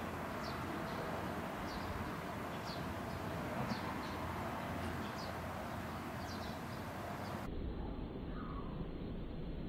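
Small birds chirping in the background: short, high, falling chirps about once a second over a steady hiss. Near the end the sound turns dull and low, slowed down along with the slow-motion footage, so a chirp comes out as a slow, lower sweep.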